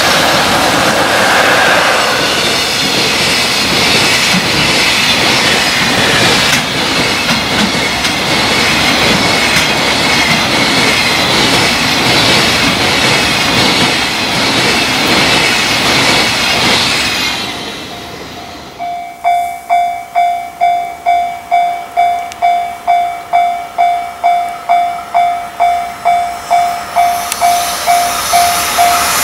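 A freight train passes at speed with a loud, continuous rush of wheels and wagons and a clickety-clack over the rail joints. About 18 seconds in, the sound cuts to a Japanese level-crossing warning bell dinging about twice a second.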